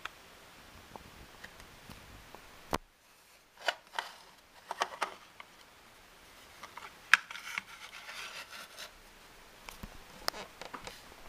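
Handling noise: scattered clicks, rubs and short scrapes, with a sharp click about three seconds in.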